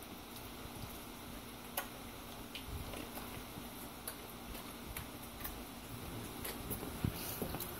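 Faint, scattered light clicks, about one every second or so, as a dog shifts and turns on a bare concrete floor.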